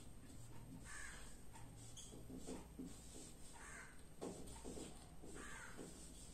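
Faint cawing of crows, a few separate calls a couple of seconds apart, with soft marker strokes on a whiteboard.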